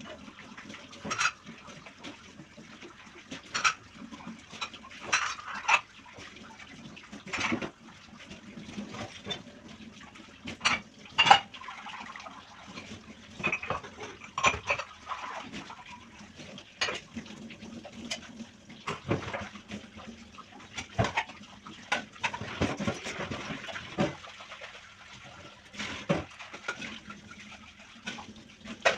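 Dishes and cutlery clattering against each other and the sink as they are washed by hand, with sharp knocks every second or two over water sounds.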